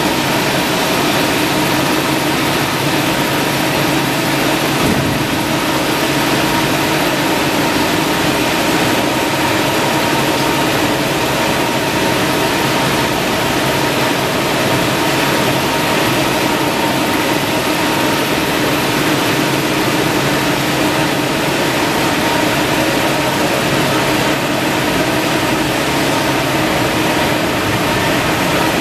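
Tissue-paper rewinding line running at speed: a steady, loud machine hum with a few constant tones over an even hiss, and no distinct knocks or cuts.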